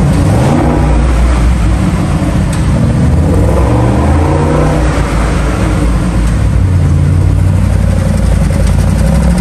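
Twin-turbo 4.0-litre V8 of a 2022 Audi RS Q8 running loud through its exhaust just after start-up, its pitch drifting up and down a little.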